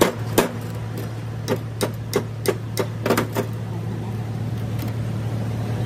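Steel hand hammer striking a steering tie rod end on a steel bench plate: about ten sharp metallic blows at an uneven pace over the first three and a half seconds, then they stop. A steady low hum runs underneath.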